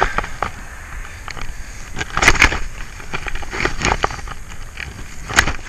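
Snow shovel scraping and chopping into chunky snow on a sidewalk: a series of irregular scrapes and crunches, with a burst of strokes about two seconds in and a sharp one near the end.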